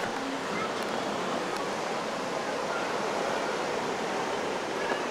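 Ocean surf heard as a steady, even rush, with no single wave standing out.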